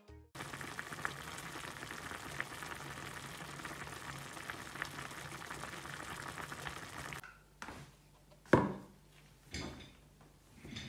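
Food cooking on a stovetop: a steady crackling sizzle that cuts off about seven seconds in. A few knocks follow, one of them sharp and loud about a second later.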